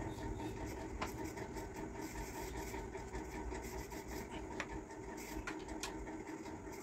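Screwdriver turning a screw through a metal hook rail into the wall: faint scraping and rubbing as the screw is driven, with a few sharp clicks.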